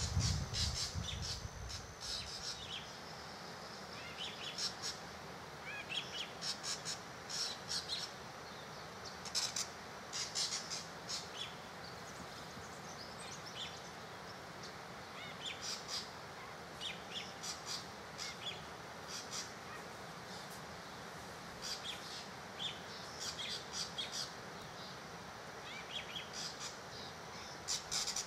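Small birds chirping in short clusters of quick high notes every second or two, with a brief low rumble at the start.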